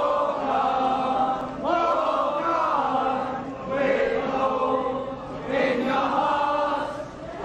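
A crowd of men and women singing together in unison, in slow, long-held phrases with short breaks between them.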